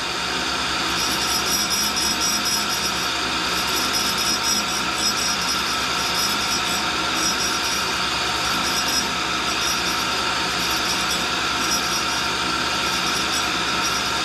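Tool and cutter grinder's wheel grinding the point of a hardened center that the motorized work head spins, with both motors running steadily under a grinding hiss. The center is being ground true and still runs out a little.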